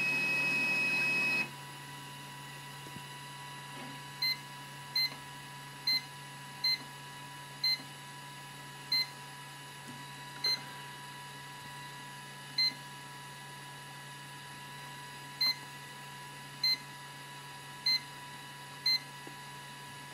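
Zebra P320i card printer beeping: one long steady beep for the first second and a half, then about a dozen short high beeps at uneven intervals, roughly a second or more apart. A faint steady electrical whine and hum sits underneath.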